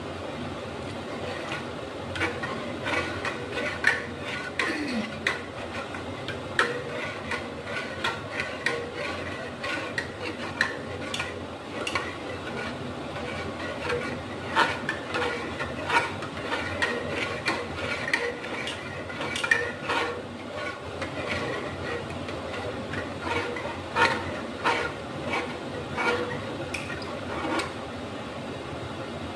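A spoon stirring in a cooking pot, clinking irregularly against its sides, with a steady low hiss underneath.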